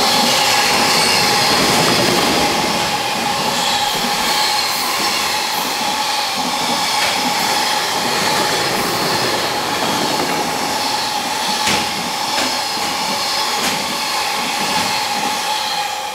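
Electric-hauled container freight train pulling out of a freight terminal and rolling past, with a steady high whine running through it. A few clicks of wheels over rail joints come in the second half.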